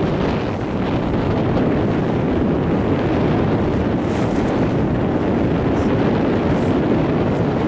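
Steady wind buffeting the microphone over the rush of choppy sea water past a sailboat's hull.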